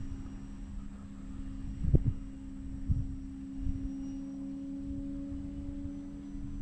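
Steady low hum of the FMS Ranger 1.8m RC plane's electric motor and propeller flying at a distance, with wind buffeting the microphone in short thumps, the strongest about two seconds in.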